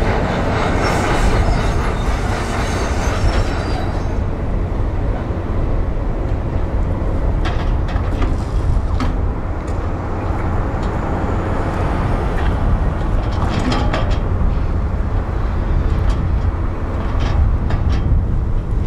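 Hitachi 470 excavator's diesel engine running with a steady heavy rumble while its sorting grapple crushes and clatters through demolition debris. Loud crunching in the first few seconds, then several sharp knocks and cracks of breaking timber and concrete.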